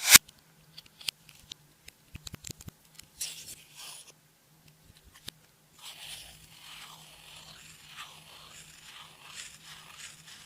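Clear slime being worked by hand: a sharp click at the start, scattered small clicks and pops, then from about six seconds in a steady run of crackling, squelching pops as the slime is stretched and pressed.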